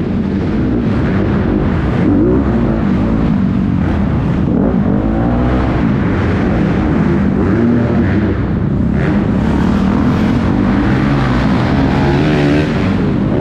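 Motocross dirt bike engine revving up and down over and over, its pitch rising and falling every second or two as the throttle is worked.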